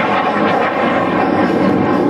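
Propeller-driven warbird's piston engine running steadily at a loud, even level.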